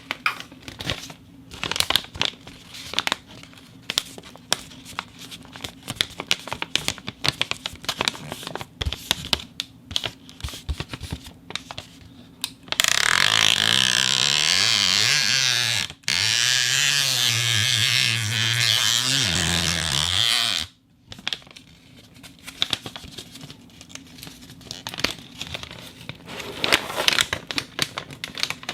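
Plastic air-cushion packaging (an air pack) handled close to the microphone, crinkling and crackling in quick irregular bursts. About halfway through comes a loud hiss of about eight seconds with a low wavering buzz, as the air is squeezed out, and then it cuts off and the crinkling resumes.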